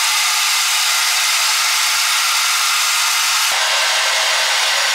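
Loud, steady hiss with its tone shifting slightly about three and a half seconds in.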